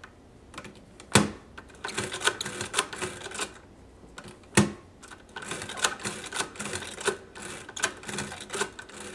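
Monroe L series adding machine cranked through repeated subtractions in a division: runs of rapid mechanical clicking and clattering from the crank and gearing. Single loud clacks come about a second in and again past four and a half seconds, as the register is shifted over by one position.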